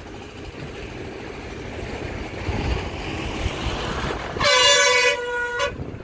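Road traffic noise that builds over the first few seconds, then a vehicle horn sounding once, loud, for just over a second near the end.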